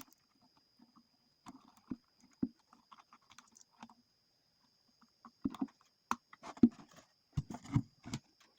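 Irregular clicks, taps and knocks of wires and connectors being handled and plugged in on a home theater amplifier, getting busier and louder in the second half. A faint steady high whine runs under it.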